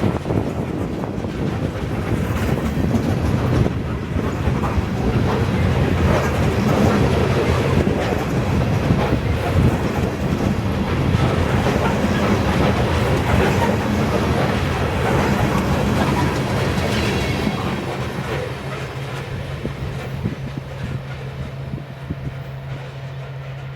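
Freight train rolling past on the rails with a steady, loud rumble and rattle of wheels and cars. It eases off in the last few seconds, leaving a steady low hum.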